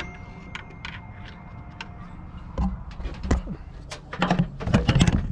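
Hand tools working in a car's engine bay: irregular clicks and knocks, with a louder cluster near the end.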